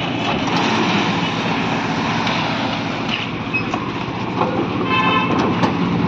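Construction machinery running steadily during a roof-slab concrete pour, where a bucket hoist lifts concrete up to the slab. A brief high-pitched sound about five seconds in.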